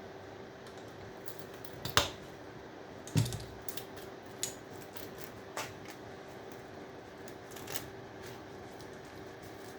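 Scattered sharp clicks and snaps of hand cutters and metal scrap being handled while stripping out copper, the loudest about two and three seconds in.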